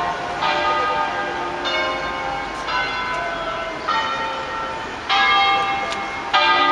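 Church bells of the Basilica of Sant'Anastasia rung in the Veronese system (Sistema Veronese), playing a bell concert: single bell strokes about once a second, each on a different note, ringing on over one another.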